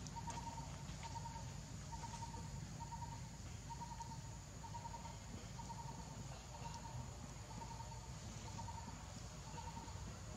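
A small animal's short pulsing call near one pitch, repeated steadily about three times every two seconds, over a low steady rumble.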